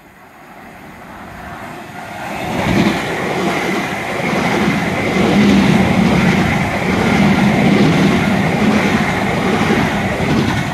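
Elizabeth line Class 345 electric train running through the station without stopping: its rumble grows over the first few seconds as it approaches, then stays loud as the carriages pass close by.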